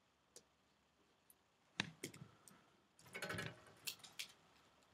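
Faint clicks and a short rattle of small metal screws, a screwdriver and a laptop display panel being handled as the LCD mounting screws are taken out. The sharpest click comes just under two seconds in, with a brief rattle about a second later.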